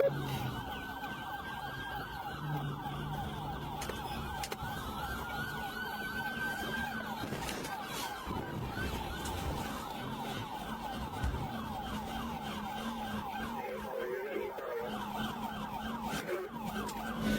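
Police car siren in rapid yelp mode, its pitch sweeping quickly up and down without a break, with a slower rising wail joining in at times.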